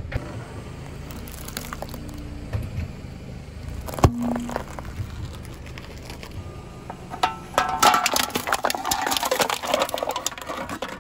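A car tyre rolling over and crushing objects on asphalt: one sharp crack about four seconds in, then a dense run of crackling and crunching near the end.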